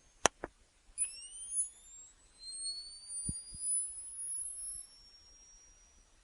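Off-camera flash unit: a sharp click and a softer second click, then its charging whine rising steadily in pitch for about four seconds as the flash recharges, with two soft ticks midway.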